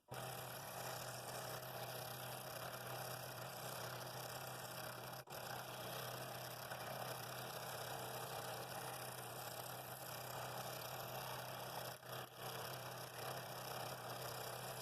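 Scroll saw running steadily as it cuts wood, a constant machine hum with a busy rattle over it, broken by brief dips about five and twelve seconds in.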